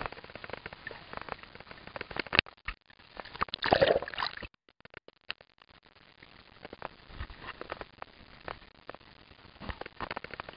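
Water splashing and sloshing, with many small knocks and clicks. There is a louder burst of noise about three and a half seconds in, and it drops away suddenly about a second later.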